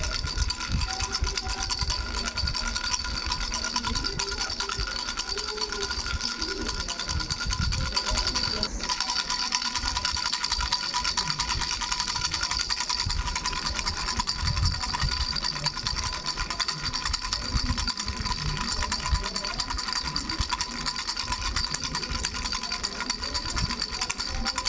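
A baby's bell rattle shaken continuously, its bells ringing steadily over a busy, irregular clatter.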